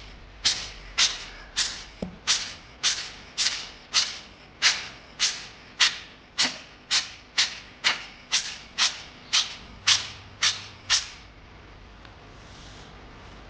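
A DSLR's shutter and mirror firing again and again, about two shots a second, as in a test of the repaired camera's continuous shooting. About twenty shots, stopping shortly before the end.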